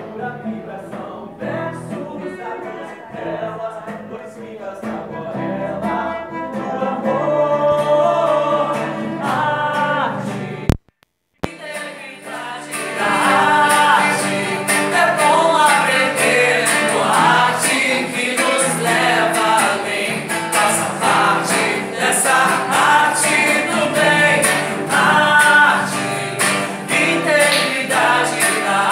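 Live song: a man singing to his own strummed acoustic guitar, with a cello accompanying. The sound cuts out for under a second about eleven seconds in, then comes back louder and brighter.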